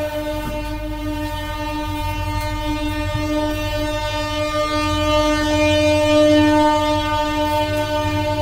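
A car horn stuck on, sounding one steady unbroken tone that swells a little louder about six seconds in.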